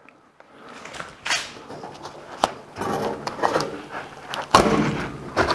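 Masking tape peeling off the steel cab corner as a taped brown-paper template is pulled away, with paper crinkling and crackling that grows louder after about three seconds.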